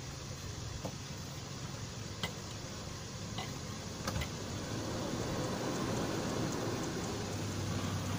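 Toyota Kijang's engine running at low speed as the car rolls slowly closer, its steady hum growing louder over the second half, with a few faint clicks.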